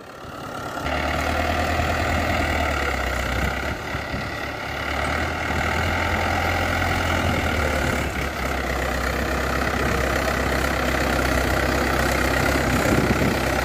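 Mahindra 595 DI Turbo tractor's diesel engine running steadily while pulling a cultivator through tilled soil, swelling to full level about a second in.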